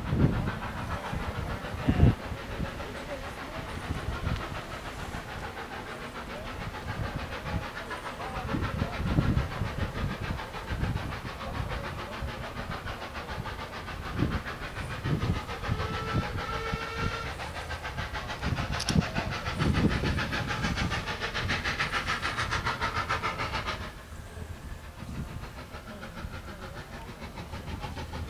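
Austerity 0-6-0 saddle tank steam locomotive drawing its train slowly toward the listener, with irregular low rumbles and thumps. A short whistle sounds a little past halfway, and a few seconds later a spell of steam hissing runs for about five seconds before cutting off suddenly.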